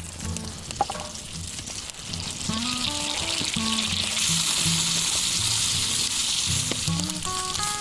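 Food sizzling as it fries in a hot pan, the sizzle growing louder about two seconds in.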